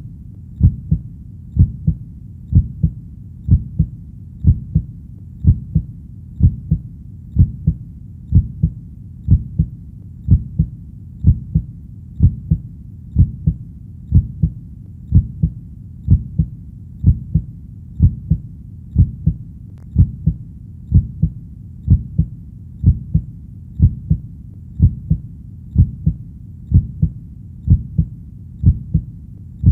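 Heartbeat sound: a steady, even lub-dub, two low thumps about once a second, repeating without change.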